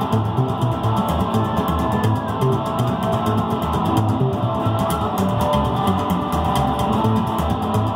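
Upright double bass and a Gretsch electric guitar playing psychobilly together, the bass plucked in a steady pulse under the guitar.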